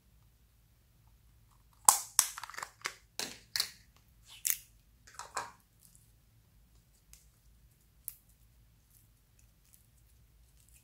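Thick slime being squeezed and stretched by hand, making a quick run of sticky crackling pops and squelches for about three and a half seconds. After that only a few faint clicks remain.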